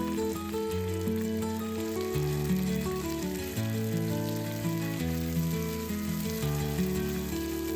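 Food frying in oil in a pan, with a steady crackling sizzle, under instrumental background music.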